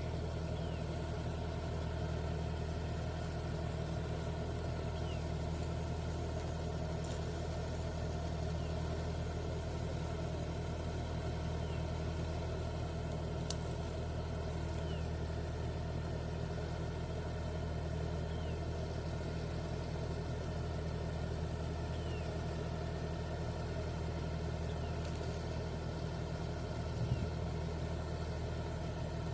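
A heavy machine's engine idling steadily, with a deep, even hum. A single sharp click comes about halfway through and a short knock near the end.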